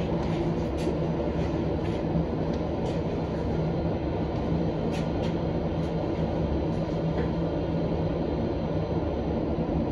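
Prague Metro Line A train standing at a station with its doors open: a steady low hum with a faint steady tone, and a few faint clicks.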